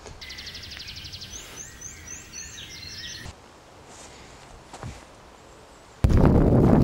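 Rapid, high chirping calls for about three seconds, with a run of five short falling notes in the middle. Near the end a sudden cut to loud wind buffeting the microphone.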